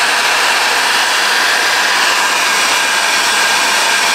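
Electric heat gun blowing hot air steadily as it shrinks heat-shrink tubing over a wire joint.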